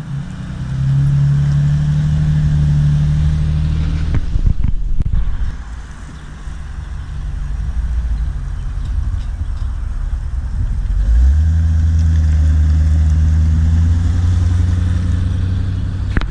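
Cars' engines running at low speed as they roll in, a steady low engine note. The first grows louder in the first second and fades about five seconds in; a second, louder engine comes in about eleven seconds in and holds.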